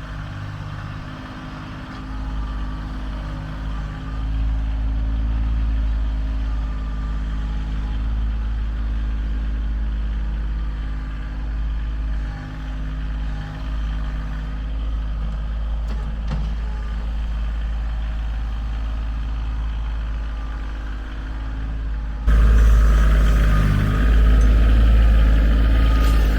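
A large engine running steadily, like that of a truck or heavy machine. About 22 seconds in it turns abruptly louder and fuller.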